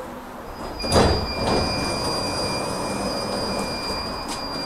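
Tram standing at a stop with its passenger doors in use: a loud thump about a second in, then a steady high electronic beep held for about four seconds over the low hum of the standing tram.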